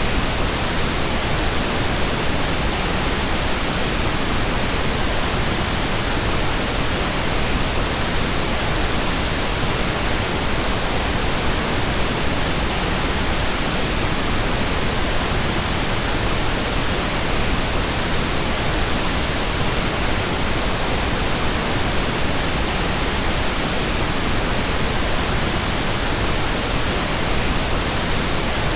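Steady pink noise: an even, unchanging hiss spread across all pitches, weighted toward the low end.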